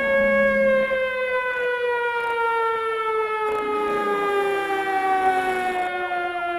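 A single loud siren-like wail with a stack of overtones, held for about a second and then slowly and steadily falling in pitch.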